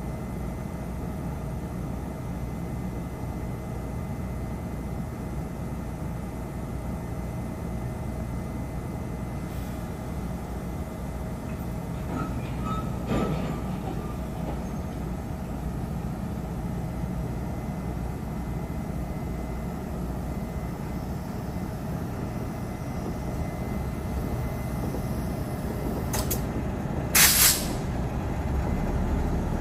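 Taiwan Railways electric locomotive and freight wagons pulling slowly away from a standstill, giving a steady low rumble with a faint steady whine. There is a brief noise about halfway through. Near the end comes a short, loud burst of compressed-air hiss.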